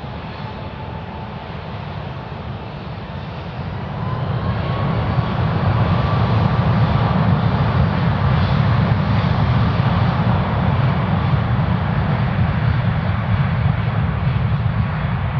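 Boeing 777-200ER's twin jet engines at takeoff power as the airliner goes past on its takeoff run. The sound grows louder, steps up about four seconds in, and then holds loud and steady with a faint whine.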